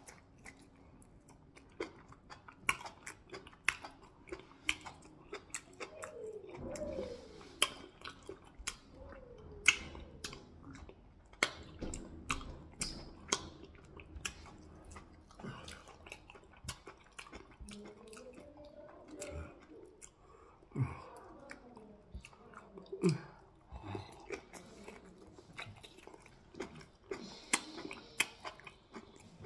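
Close-up chewing of meat in afang soup eaten by hand, with many sharp, wet mouth clicks and smacks coming irregularly throughout.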